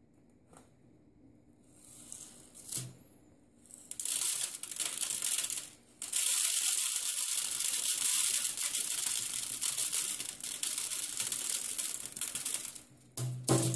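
Activated carbon granules being filled into a copper pipe around a rod and tamped down, a dense gritty rustle. A few light clicks come first, then the gritty noise runs from about four seconds on with one short break, and a thump comes near the end.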